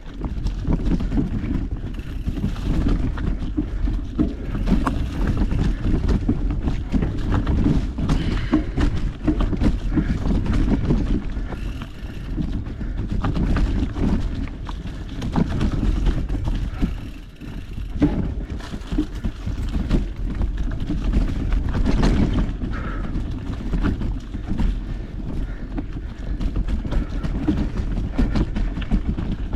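Mountain bike rolling over a rough dirt trail: tyre rumble and constant rattles and knocks from the bike, with wind buffeting the camera microphone. It eases off briefly a little past halfway, then picks up again.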